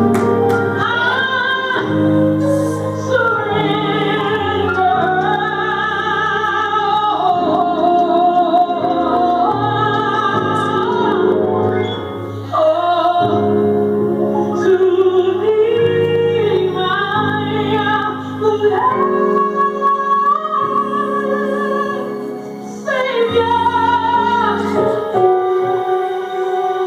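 Female gospel vocal with vibrato, held notes and runs over piano accompaniment.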